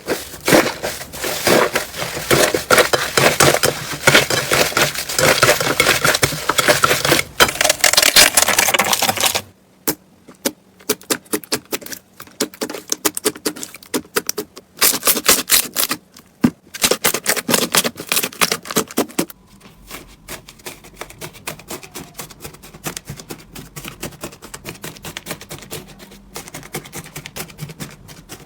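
Slime being squeezed and pressed by hand, giving dense crackling and clicking pops. The sound changes abruptly twice: after about a third it turns into sparser snaps with short pauses, and for the last third it is quieter, finer crackling.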